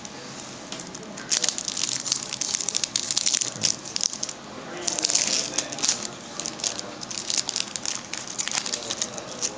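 A trading-card booster pack's foil wrapper being crinkled and torn open by hand: dense crackling in two long bouts, starting about a second in and again about five seconds in, then scattered crinkles.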